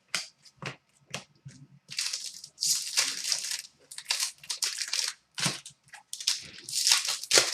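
Crinkling and rustling of foil trading-card pack wrappers being handled, in irregular bursts.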